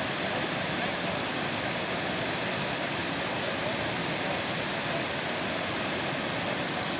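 Muddy water gushing out of a large culvert pipe and pouring over rocks: a steady rushing noise.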